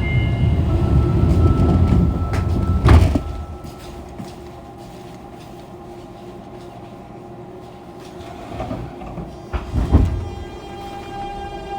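Doors of a Fukuoka City Subway 2000 series car rumble shut, ending in a heavy thud about three seconds in. Then the car idles quietly. Near ten seconds a sharp clunk comes from under the floor, typical of the line breaker closing, and the Hitachi GTO-VVVF inverter starts a whine of several steady tones as the train pulls away.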